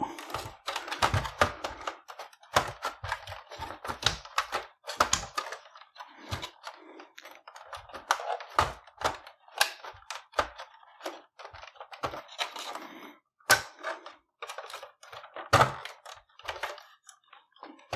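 Irregular clicks and taps of small plastic and metal parts inside an opened PlayStation 4 as a part is wiggled and pried loose by hand.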